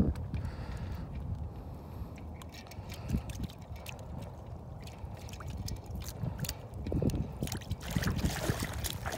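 Low wind rumble on the microphone outdoors on open ice, with scattered small clicks, and a rustling burst of handling noise near the end as the phone moves.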